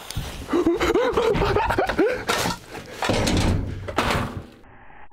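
A lit firecracker fuse fizzing and sputtering, with rustling and crunching in snow. The firecracker goes off with a loud, sharp bang at the very end.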